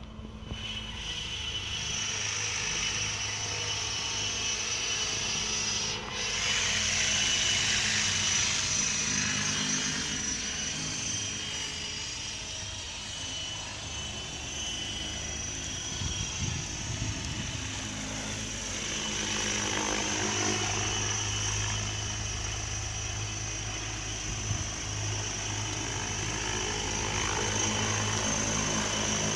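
Align T-Rex 700E DFC electric RC helicopter flying, running on a 12S LiPo: a steady high whine from the motor and drive over the whirr of the rotor blades. It gets louder about six seconds in, then rises and falls as the helicopter moves around.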